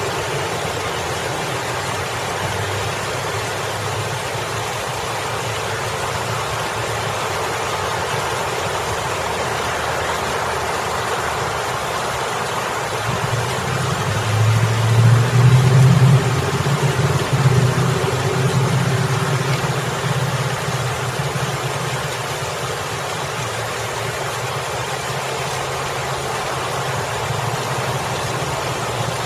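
Water spilling steadily over a boulder fountain, with road traffic running behind it. About halfway through, a vehicle engine swells up loud for several seconds as it passes, then fades back into the traffic.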